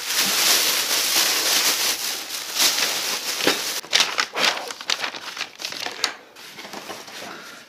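Thin plastic and paper crinkling and rustling as they are handled, with a few sharp clicks about halfway through. It dies down near the end.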